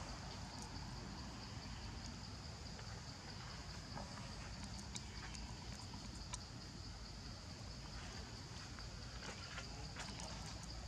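Steady, high-pitched insect chirring from the surrounding forest, with a few faint scattered clicks over a low background rumble.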